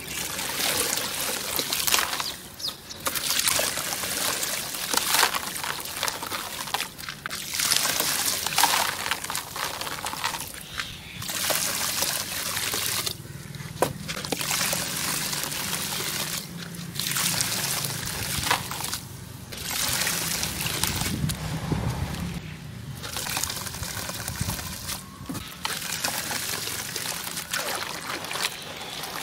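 Crumbled sand-cement cylinders pouring into a basin of water, with hands sloshing and squeezing the wet grey mass. The sound comes in repeated hissing bursts of a couple of seconds, with short pauses between them.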